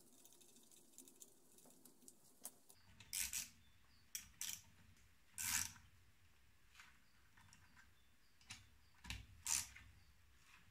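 Scattered metallic clicks and clinks of hand tools and parts on a Mercedes-Benz OM 615 diesel cylinder head under assembly. The sharpest knocks come about three seconds in, five and a half seconds in and near the end.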